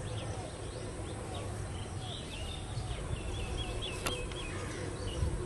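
Outdoor ambience of small birds chirping and calling, with a quick run of repeated notes about three seconds in, over a steady low rumble. A single sharp click about four seconds in.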